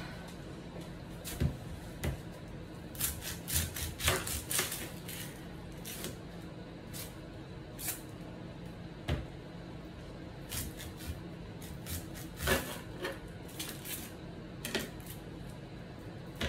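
Kitchen knife tapping and cutting against a plastic cutting board as an onion is peeled and trimmed: irregular clicks and taps, with a quick run of them a few seconds in and another sharp one past the middle.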